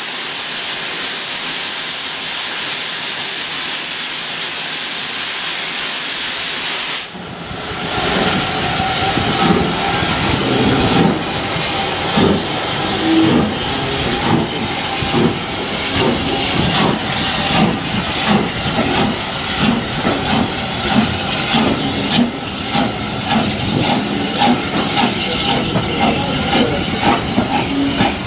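Steam locomotive hissing steam steadily at the platform for about the first seven seconds; the hiss then cuts off and the train pulls out, its coaches rolling past with an uneven string of clanks and knocks from wheels and couplings.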